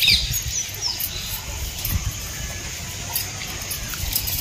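Small birds chirping: a few short, high, downward-sliding chirps, over a steady low rumble.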